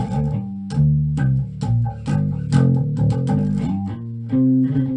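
Instrumental intro music: plucked guitar notes in quick succession over a bass guitar line.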